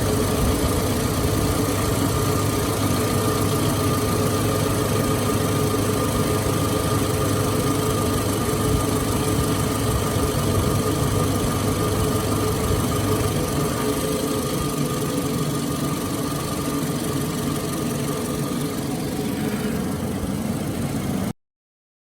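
2006 Toyota RAV4's 2AZ-FE four-cylinder engine idling steadily after its head gasket and cooling-system repair. The sound cuts off abruptly near the end.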